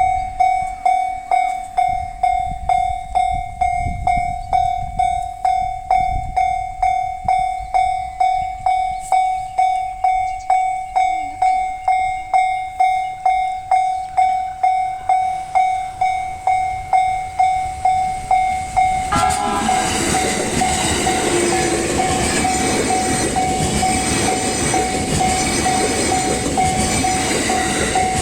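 A Japanese level crossing's electronic warning bell rings about twice a second. About two-thirds of the way in, an E657 series electric train arrives and passes with a loud, steady rush of wheel and running noise, the bell still ringing faintly beneath it.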